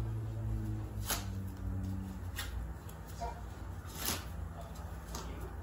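Light clicks and rustling from an O gauge model locomotive being handled and turned over in the hands, a handful of sharp clicks over a steady low hum.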